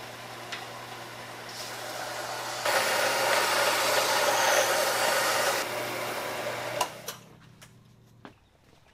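Benchtop belt sander running, with a small wooden bandsaw insert pressed against the belt. The grinding of wood on the sanding belt builds to its loudest in the middle, then stops about seven seconds in, and the motor's hum winds down over the next second or so.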